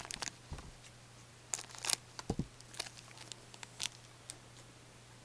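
Hockey card pack wrapper crinkling and cards rustling as they are handled: a string of short crackles and clicks, loudest about two seconds in, with a soft thud just after.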